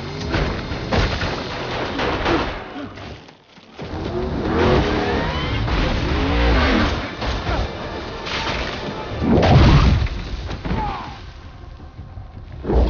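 Action-film chase soundtrack: dramatic score mixed with heavy impact effects, whooshes and crashes, with a short lull about three and a half seconds in and the loudest low thud about nine and a half seconds in.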